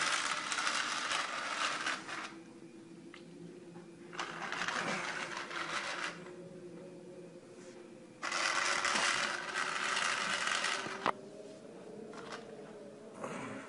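Battery-powered toy train's small motor whirring as it runs around a plastic track, the whir and wheel rattle getting louder three times and dropping back in between. A sharp click about eleven seconds in.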